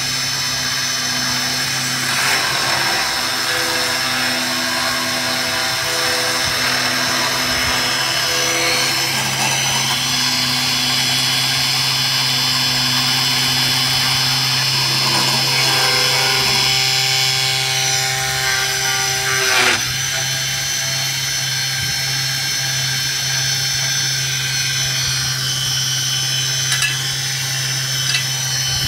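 Homemade CNC router's spindle motor whining steadily as its small end mill cuts into fibreboard, with the stepper motors' humming tones changing pitch every few seconds as the axes change speed and direction.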